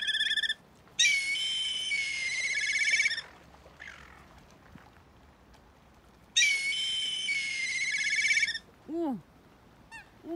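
Loud, shrill whistle-like sound effect in two long blasts of about two seconds each, held steady and then warbling at the end. Near the end come two short duck quacks, each rising and falling.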